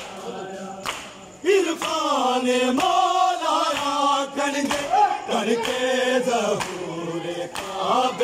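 A group of men chanting a noha, an Urdu Muharram lament, in unison. The chant comes in strongly about a second and a half in. Regular slaps of matam, hands beating on bare chests, keep time with it.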